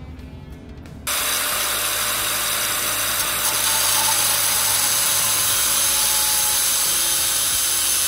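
Angle grinder cutting through a metal bracket clamped in a vise, shortening it. It is a loud, steady grinding hiss that starts suddenly about a second in and holds even.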